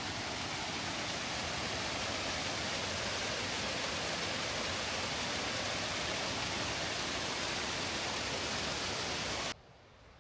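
Man-made waterfall's water rushing steadily, cutting off suddenly near the end.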